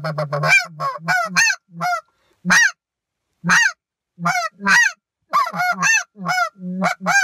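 Homemade snow goose call, a speck call with its reed shaved down and tuning pulled back to sound lower, blown in a series of short honking yelps. Each note breaks from a low grunt into a high note that rises and falls; some come in quick runs, others singly about a second apart.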